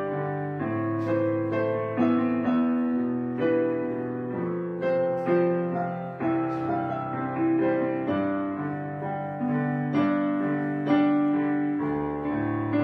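Background piano music: slow, quiet chords, each note struck and left to fade before the next.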